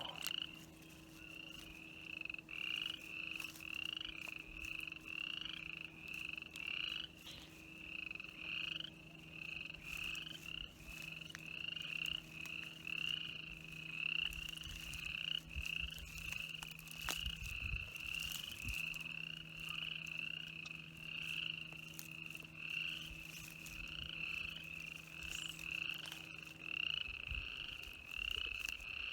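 Frog calling over and over in short, high calls about twice a second. Under it runs a steady low hum that stops about 27 seconds in.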